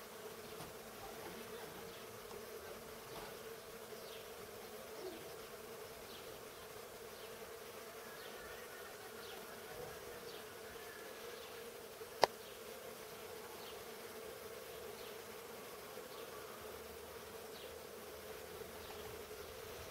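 Bees buzzing steadily around cherry blossom, a low even hum, with one sharp click about twelve seconds in.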